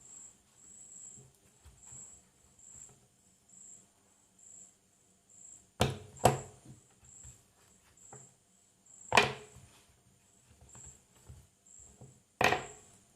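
Handling of a laser torch and its packaging: four sharp clicks or knocks, two close together about six seconds in, one near nine seconds and one near the end. Behind them a faint high chirp repeats about twice a second.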